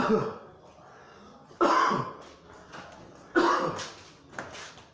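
A man's voice in three short, sharp outbursts about a second and a half apart, each starting abruptly and dying away with a falling pitch.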